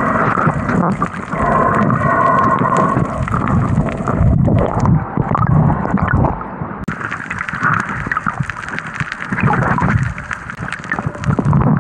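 Underwater sound picked up by a snorkeler's camera: muffled water rushing and gurgling with bubbles, a low rumble and many small knocks. It gets quieter about halfway through.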